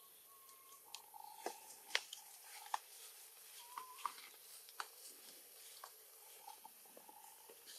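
Faint scattered ticks and crackles of macaques moving over dry leaf litter and gripping tree bark, with a faint steady whistle-like tone heard several times.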